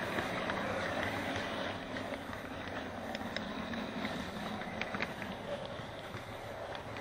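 HO-scale model train running along the track, heard from a camera riding on it: a steady rumble and whir with irregular sharp clicks of the wheels over the track.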